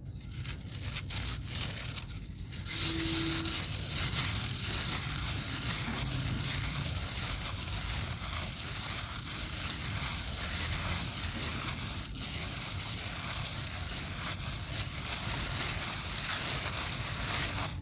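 Gritty cement shapes being crushed and crumbled: a dense, continuous crunching and crackling of breaking cement and grit.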